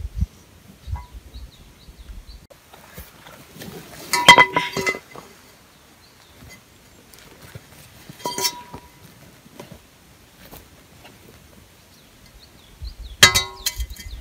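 Metal camp cookware strapped to a backpack, a frying pan and a cup, clinking three times as the pack is carried and set down. Each clink rings briefly; the first and last are loudest.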